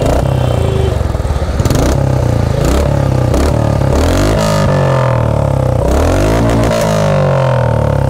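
Royal Enfield Classic 350 Reborn's single-cylinder engine running through a short Punjab aftermarket silencer with the catalytic converter left in, revved several times so the pitch rises and falls, most clearly in the second half. The note is deep and bassy but not very loud: a fairly normal sound with the cat can in place.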